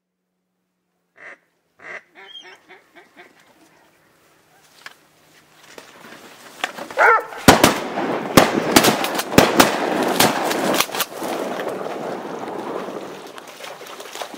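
A run of duck quacks, then a few seconds later a rapid volley of about ten shotgun blasts from several guns, fired at ducks coming in over the decoys, within some three and a half seconds, over a noisy wash of sound that fades after the shooting.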